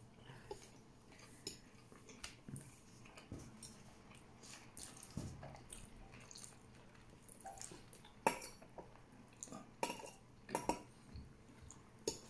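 Eating rice and chicken by hand from a plate: scattered small clicks and taps of fingers and food against the plate. The sharpest comes about eight seconds in, with a few more close together around ten seconds in.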